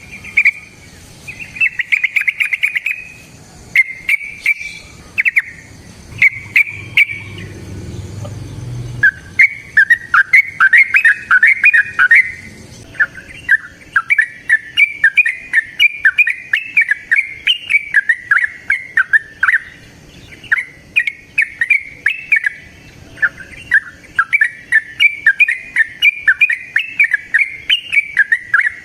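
Yellow-vented bulbul (trucukan) singing. It opens with short bubbly bursts of song, then from about nine seconds in breaks into a long, almost unbroken run of rapid warbling phrases, the 'ropel panjang' song.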